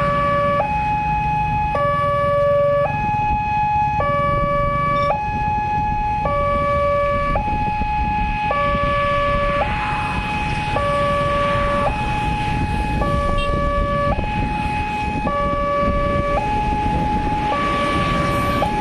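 Railway level-crossing warning alarm sounding an electronic two-tone signal, a lower and a higher tone taking turns about once a second, which warns that a train is approaching, over the low rumble of motorcycles waiting at the barrier.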